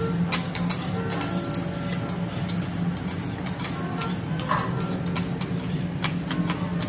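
Two metal spatulas scraping and clicking on a steel teppanyaki griddle, stirring minced garlic that sizzles in a pool of hot oil.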